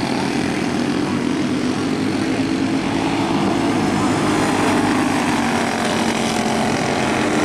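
Racing karts' small single-cylinder engines buzzing steadily as the pack laps the dirt oval, their pitch rising and falling slightly as they run through the turns.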